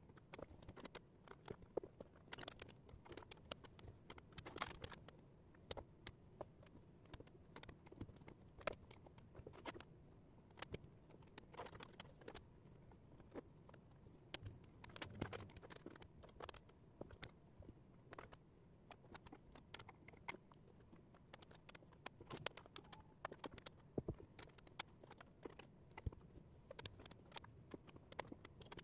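Thin wooden jigsaw puzzle pieces being handled: quick, irregular clicks and taps as they are picked up, pressed into place and slid across the table surface, with faint shuffling between.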